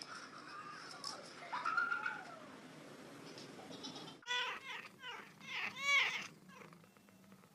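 Cat meowing: one drawn-out meow about two seconds in, then, after an abrupt cut, a quick series of short, high-pitched meows.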